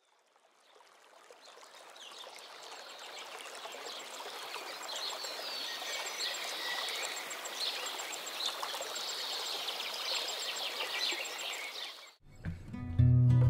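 Running water of a small waterfall, with birds chirping over it, fading in slowly from silence. It cuts off abruptly near the end as strummed acoustic guitar music starts.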